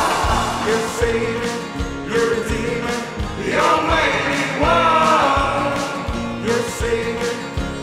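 Background music: a song with voices singing over a steady beat.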